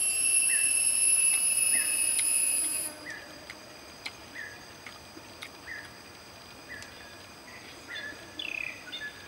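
Forest insects calling. A loud, steady, high-pitched insect trill stops abruptly about three seconds in. Under it, a short falling chirp repeats about every half second, and a couple of louder falling calls come near the end.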